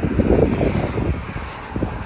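Wind buffeting the microphone: an irregular low rumble, strongest in the first second and easing toward the end.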